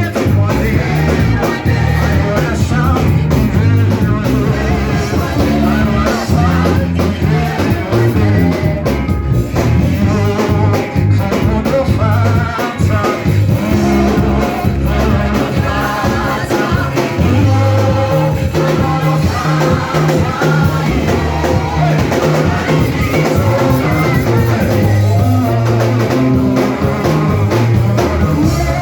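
Upbeat worship music from a live band, with drum kit, bass and guitar playing under voices singing.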